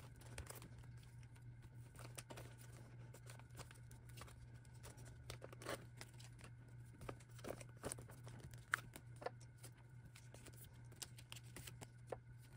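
Faint rustling, crinkling and light clicks of photocards being handled and slid into plastic binder pocket pages, with a page being turned, over a steady low hum.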